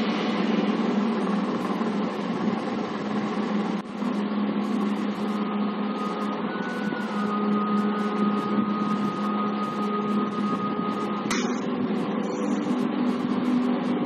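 Film soundtrack played over cinema speakers: a steady low drone, with a thin high tone held for several seconds in the middle.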